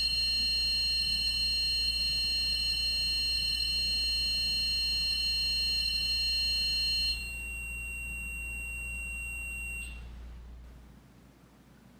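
Mel Meter's alarm going off with a steady high electronic tone. About seven seconds in it drops to a quieter single tone, which stops about ten seconds in.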